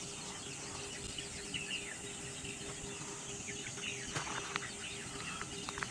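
Birds chirping and insects trilling at dawn, with a faint steady hum underneath and a few faint clicks in the second half.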